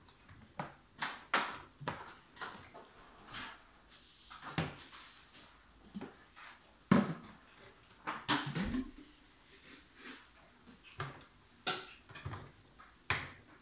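Hard plastic blender jars being handled on a Vitamix blender base: a scattered series of short knocks and clunks as one container is lifted off and a Blendtec jar is set in its place. The sharpest knock comes about halfway through.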